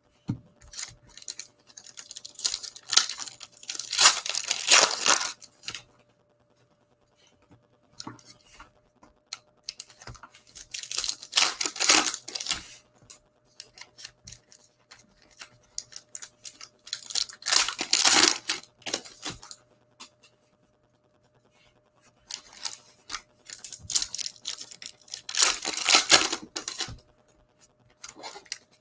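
Foil trading-card pack wrappers being torn open and crinkled by hand, in several bursts of rustling with short quiet pauses between.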